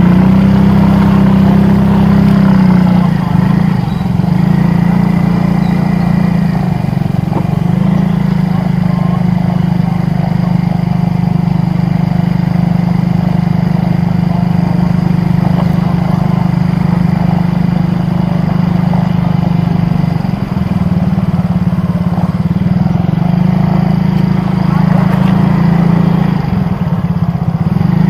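A vehicle engine running steadily, a continuous low drone with street noise over it.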